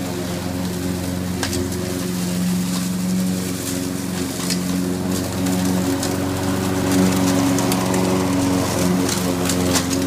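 Petrol engine of a homemade remote-controlled robot lawn mower running steadily as it drives across the grass, with a few sharp ticks.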